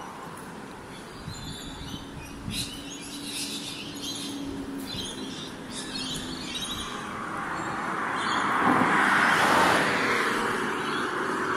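Birds chirping repeatedly over outdoor background noise. A passing vehicle swells to its loudest about nine seconds in, then fades.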